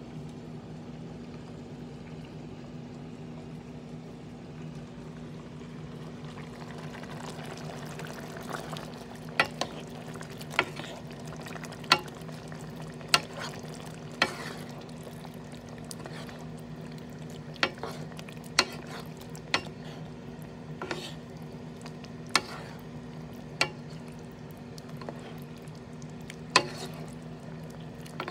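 A hot pot of shrimp and vegetables in coconut cream cooking, with sharp clicks or pops about once a second from about a third of the way in, over a steady low hum.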